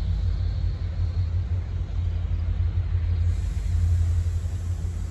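Steady low rumble of a nearby large vehicle engine running, with no change in pitch.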